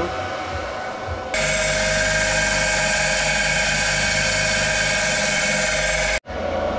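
Bench grinder sharpening a TIG welder's tungsten electrode: a steady, high grinding hiss over the motor's hum. It comes in suddenly about a second in and cuts off suddenly near the end.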